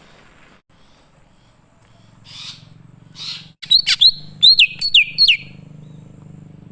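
Wild green leafbird (cucak ijo) singing: two harsh rasping notes, then a quick run of about five sharp whistled notes, each falling in pitch. A low steady hum sits underneath from about two seconds in.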